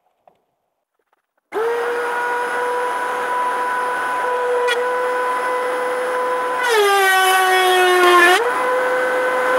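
Near silence, then a DeWalt benchtop thickness planer switches on about a second and a half in and runs with a steady whine. Around seven seconds in a white oak board feeds through: the motor's pitch drops and it gets louder for about a second and a half as the knives cut, then it picks back up to speed.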